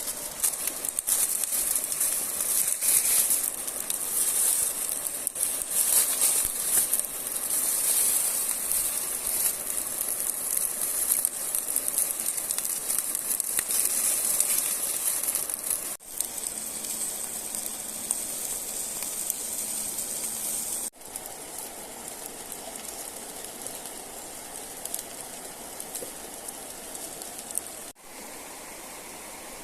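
Crackling, sizzling cooking noise over an open fire. About halfway through it cuts abruptly to a steadier, quieter rushing of river water, with two more abrupt cuts later.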